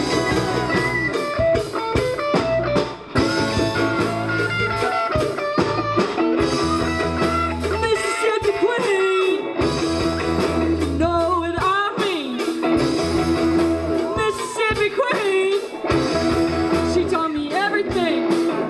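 A live band playing a rock song: a singer over guitar and a steady bass line.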